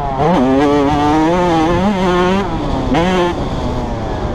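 Two-stroke engine of a Kawasaki 85cc motocross bike at speed. It revs up hard just after the start and holds high, backs off about two and a half seconds in, gives a short burst of throttle about three seconds in, then drops off.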